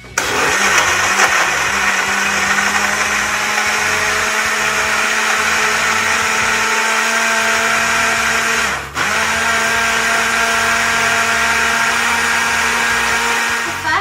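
Countertop blender motor running at full speed, blending a berry smoothie of apple juice, berries, yogurt and ice cream, with a steady hum and whir. It starts abruptly, cuts out for a moment about nine seconds in, then runs on until it stops near the end.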